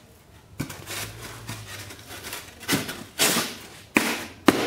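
Blocks of extruded polystyrene foam being shoved into a plywood frame: foam scraping against foam and wood, with a few sharp knocks, a longer scrape about three seconds in, and the sharpest knocks near the end.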